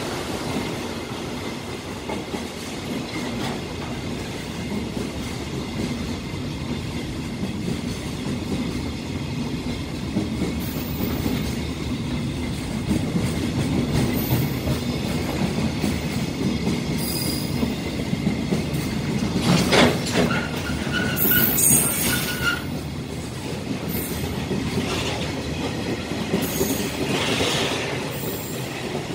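Container freight train wagons passing at speed: a steady rumble of steel wheels on rail with a rhythmic clatter at the rail joints. Several brief high-pitched wheel squeals come through, the loudest about twenty seconds in.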